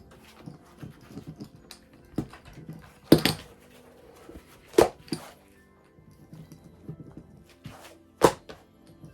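Stiff vegetable-tanned leather bag being turned right side out by hand: leather rubbing and crumpling quietly, with three sharp thuds of the folding leather about three, five and eight seconds in.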